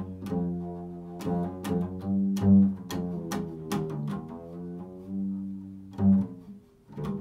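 A string instrument playing a slow, improvised phrase of single notes, each with a sharp attack and a ringing tail.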